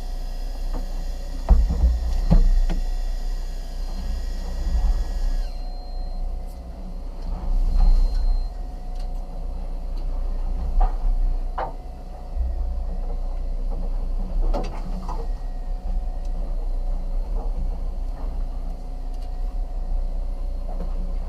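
Steady low rumble and wind buffeting the microphone on a fishing boat, with a few scattered knocks and clicks.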